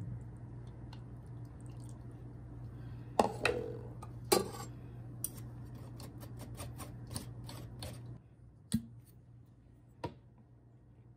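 Spoon knocking and scraping in a small metal mesh strainer over a plastic blender jar: a few sharp knocks, then a run of lighter taps, over a steady low hum that stops about eight seconds in.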